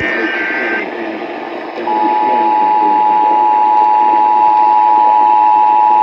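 An Emergency Alert System test on an AM broadcast, heard through a small emergency radio's speaker over AM static. A burst of the alert's digital header screech ends under a second in. About two seconds in, the steady two-tone EAS attention signal begins and holds.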